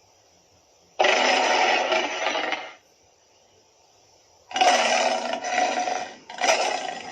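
Tyrannosaurus roar sound effects: one roar of about two seconds, then after a pause of nearly two seconds two more roars back to back.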